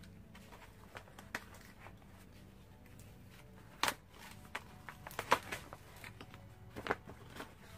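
Fabric laundry hamper being handled and unfolded: scattered soft rustles and crinkles of cloth and packaging, the loudest about four and five seconds in.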